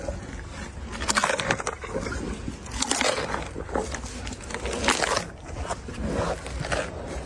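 An elephant chewing food, making irregular crunching and scraping noises.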